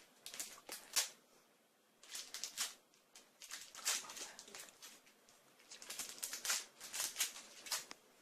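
Foam squishy toys squeezed and handled close to the microphone, making soft crackling rustles that come in short bunches with pauses between them.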